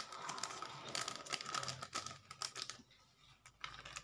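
A small plastic spice sachet crinkling and crackling in the hands as it is opened and emptied into a blender cup, with many sharp little crackles; it goes quiet a little under three seconds in.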